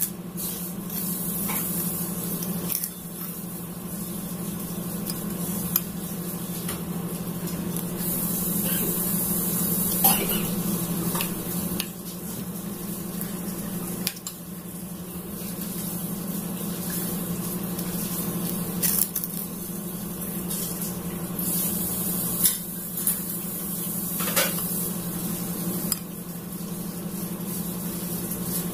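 Dishes being washed at a sink: tap water running steadily, with plates and cutlery clinking now and then. A metal spoon stirs curry in a ceramic bowl, over a steady low hum.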